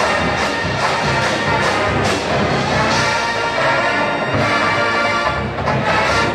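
Full marching band playing a brass-led show tune, trumpets and trombones over drumline hits.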